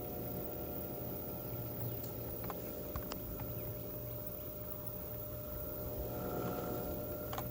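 Steady hum of an Intex pool filter pump running, with a few faint clicks and knocks over it.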